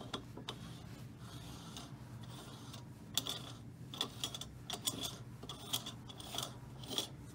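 Light, irregular metallic clicks and clinks from a spherical roller bearing, its adapter sleeve, nut and lock washer being handled and turned on a steel shaft. The clicks come mostly from about three seconds in.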